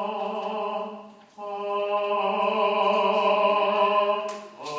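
Sustained sung vowel in a choir vocal warm-up exercise: a voice holds a long steady note, breaks off briefly about a second in, then holds it again for about three seconds.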